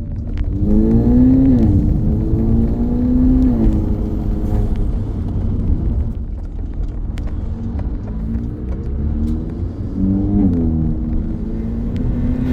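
Audi A3 1.8 TFSI turbocharged four-cylinder, fitted with a cold air intake, accelerating under load: the engine note rises about a second in, holds, and drops near four seconds at a gear change, then climbs again and falls at another shift near the end, over a steady low rumble.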